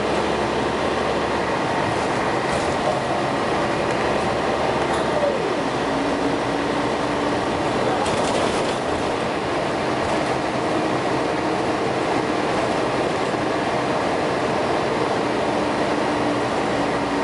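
Scania L113CRL bus heard from inside the saloon while under way: the 11-litre six-cylinder diesel runs over steady road and body noise, with whine from the ZF automatic gearbox. The whine rises in pitch twice in the first few seconds, then settles to a steady hum.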